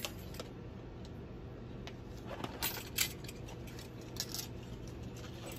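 Light metal clinks and soft rustling as nylon harness webbing is fed through a metal D-ring and tri-glide, in a few short clusters about two to three seconds in and again a little past four seconds.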